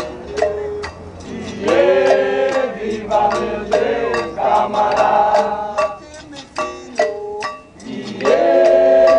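Capoeira Angola roda music: berimbaus struck in a steady beat, about three strikes a second, under voices singing in drawn-out phrases.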